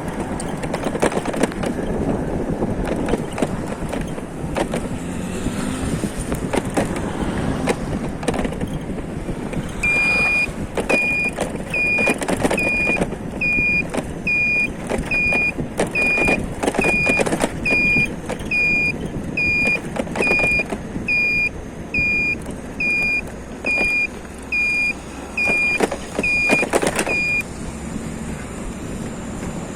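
Vehicle travelling on the road, with steady road noise and scattered knocks and rattles. About ten seconds in, a high electronic beep starts repeating a little over once a second, about twenty times, and stops a couple of seconds before the end.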